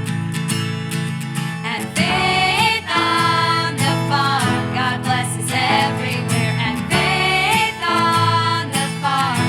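Music: strummed acoustic guitar, with a voice singing a melody over it from about two seconds in.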